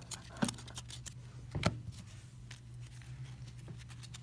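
1998 Fleer baseball cards being flipped and pried apart by hand: light rustles of card stock with a few sharp snaps, the loudest about half a second and a second and a half in. The cards are old and stick together, so they have to be peeled apart. A steady low hum runs underneath.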